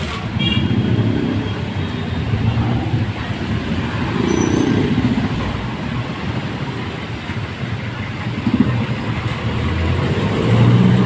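Heavy traffic on a rain-soaked city street: engines of passing jeepneys, tricycles and motorcycles rumbling over a steady hiss of rain and wet road. A louder engine passes close by near the end.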